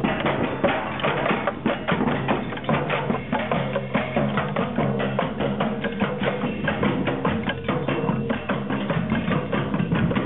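Group percussion ensemble drumming together: a dense rhythm of many fast, overlapping hits, with some low pitched notes held underneath.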